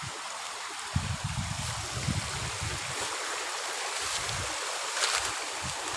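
Steady rush of a shallow stream running over rocks, with irregular low buffeting of wind on the microphone and a brief rustle of dry grass near the end.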